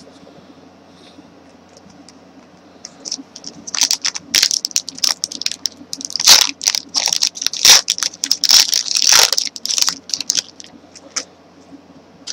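Trading card pack wrappers and cards being handled: a run of crinkling, rustling and tearing of foil and plastic for several seconds, then one short tick.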